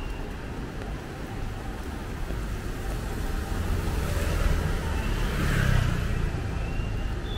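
City street traffic: a car passes close by, its engine rumble and tyre hiss on the wet road rising to a peak about five seconds in and then fading, over steady low traffic rumble.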